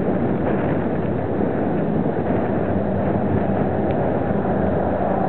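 Steady wind rush on the microphone of a small camera carried on a moving bicycle, with road traffic running alongside.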